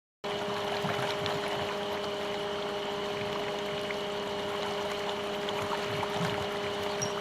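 Mountain stream water rushing steadily, cutting in abruptly about a quarter second in. A few steady tones run under the water noise.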